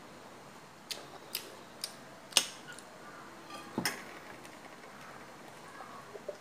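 Metal spoon clinking against a bowl while eating: about five sharp taps over the first four seconds, the loudest about two and a half seconds in, ending with a duller knock near four seconds.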